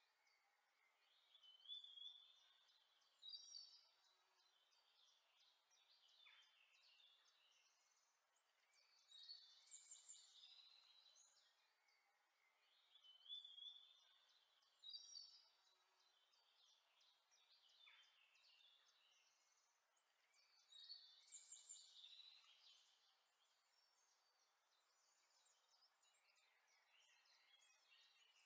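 Near silence, with faint, high chirping calls in clusters that repeat in the same pattern about every twelve seconds.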